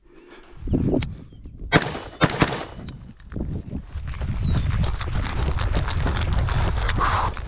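Rifle shots, two or three sharp cracks in quick succession about two seconds in. They are followed by a steady low rumble with rapid, dense clatter.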